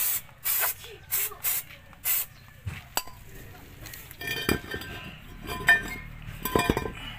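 An aerosol brake cleaner is sprayed in about five short hissing bursts onto a drum-brake backing plate and wheel hub. Several light metallic clinks and knocks follow.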